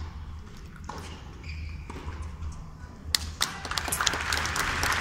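Tennis ball struck with rackets during a rally, a few separate hits, then the crowd starts applauding about three and a half seconds in, the clapping swelling as the point ends.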